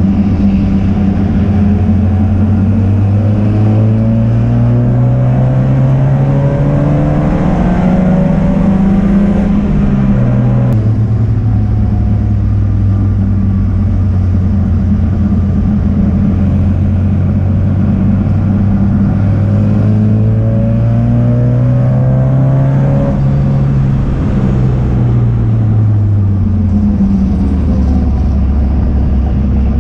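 Race car engine running hard on track, its pitch climbing steadily under acceleration, then dropping sharply about ten seconds in as it shifts up. It holds steady, climbs again, and falls away near the end as the car slows, with a constant rush of wind and road noise underneath.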